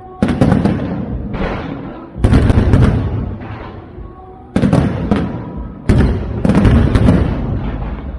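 Aerial fireworks shells bursting overhead in about five loud volleys, each a cluster of sharp bangs that fades into a rumbling echo before the next.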